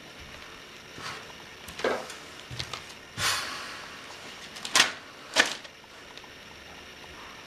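Footsteps on a stage floor and the handling of a paper magazine: a longer rustle about three seconds in, then two louder sharp paper swishes about half a second apart as it is opened and held up.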